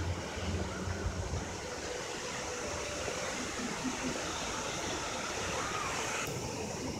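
Storm wind rushing through the trees, a steady surf-like noise.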